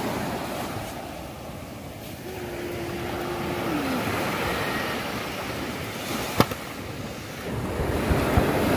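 Ocean surf washing, with wind buffeting the microphone and the level swelling and easing. A short steady hum sounds about two seconds in and sags at its end, and a single sharp click comes about six seconds in.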